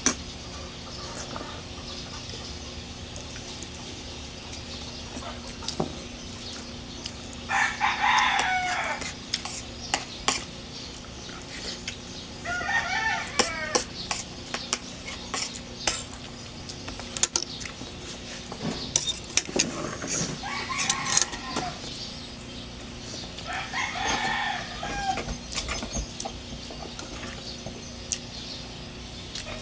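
A rooster crowing about four times, each crow lasting a second or two, with scattered sharp clicks in between.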